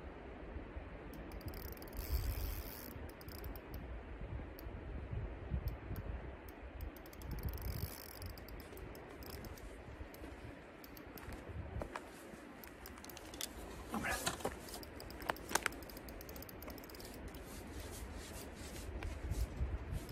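Wind buffeting the microphone in two gusts, about two and eight seconds in. Light clicking and handling noise from the fishing rod and spinning reel comes in a cluster of sharp clicks in the second half.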